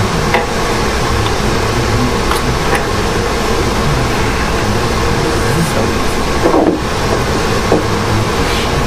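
A steady fan-like rushing noise, with a few light clicks and one louder clunk about two-thirds of the way through as parts around the fuel rail are handled.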